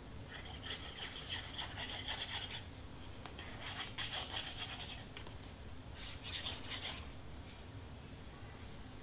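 Cardstock pieces being rubbed and pressed down by hand, a faint scratchy paper-rubbing sound in three bursts, the last one shorter.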